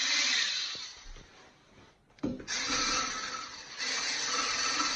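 Electric mixer beating salted egg whites into foam. It runs, dies away between about one and two seconds in, then starts again abruptly and runs on with a steady whine.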